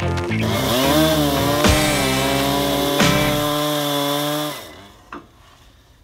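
Chainsaw running under load in an Alaskan sawmill, ripping along a log, its pitch sagging and recovering about a second in, with music playing over it. The saw and music stop about four and a half seconds in.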